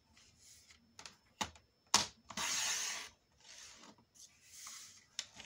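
Sliding paper trimmer cutting card: a few sharp clicks and knocks as the clear rail is set down on the sheet, then the cutting head sliding along the rail through the card with a rasping hiss for under a second, followed by softer sliding and paper sounds.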